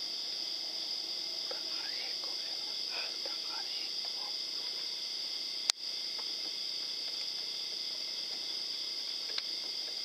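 Steady chorus of night insects chirring, with a single sharp click a little past halfway through.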